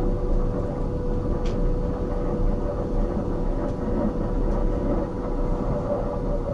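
Narrow-gauge railway carriage running along the track: a steady rumble with a constant hum, and one faint click about one and a half seconds in.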